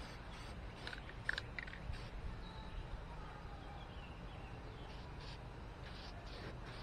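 A few short hisses of an aerosol spray-paint can, over faint distant karaoke singing with a wavering pitch.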